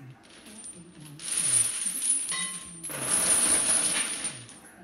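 Heavy steel lifting chains hanging from a loaded barbell, clinking and rattling as the links pile onto the floor and lift off during squat reps. There are two bursts of rattling, the second longer.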